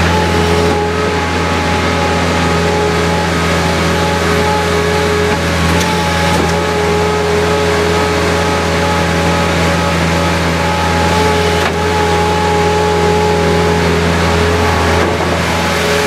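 Cummins diesel engine of a Sierra PN2700 mobile baler running steadily, a low drone with a steady whine over it.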